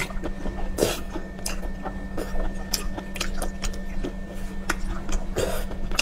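Close-miked eating sounds of octopus tentacles being chewed: irregular wet mouth smacks and clicks, with a steady low hum underneath.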